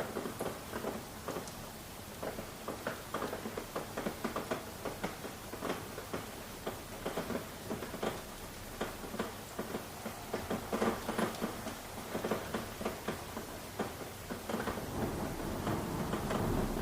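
Rain falling, with many separate drops pattering irregularly over a steady hiss. A low rumble builds over the last couple of seconds.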